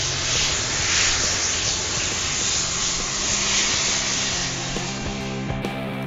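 A big bundle of sparklers burning with a loud, steady hissing fizz over low background music; about five and a half seconds in the hiss falls away and the music carries on alone.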